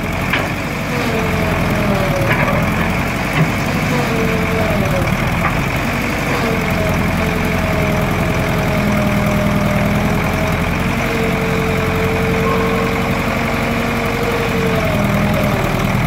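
JCB Model 4 backhoe loader's diesel engine running steadily while the backhoe arm and bucket are worked. Over it a wavering whine from the hydraulics rises and falls as the boom moves, with a sharp knock about three and a half seconds in.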